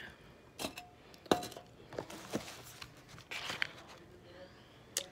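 Cardboard takeout box being handled and pried open: a few short knocks and clicks, the sharpest about a second in, with a brief rustle of cardboard later on.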